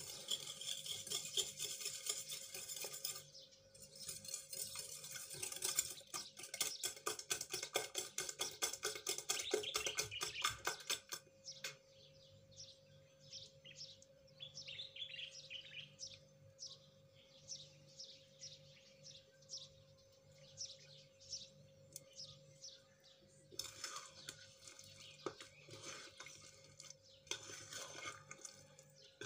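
A wire whisk beating eggs and sugar in a glass bowl, fast strokes clicking against the glass, with a brief pause about three seconds in; it stops about eleven seconds in. Quieter sounds follow as the egg mixture is poured over the bread. Near the end a spoon scrapes and stirs the soaked bread in a ceramic bowl.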